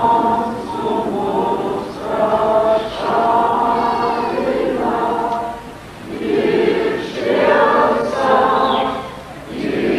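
A choir singing together, slow phrases of a few seconds each with short breaks between them.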